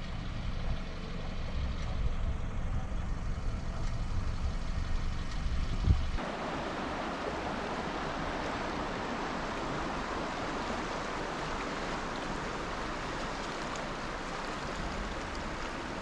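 A low steady rumble, then from about six seconds in a steady rushing hiss.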